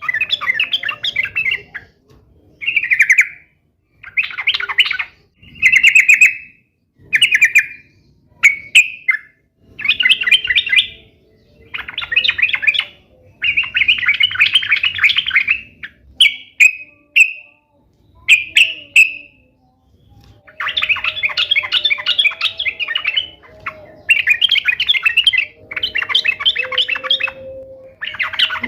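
Yellow-vented bulbul (trucuk) singing in quick, chattering bursts of notes, each phrase about a second long, repeated again and again with short pauses between.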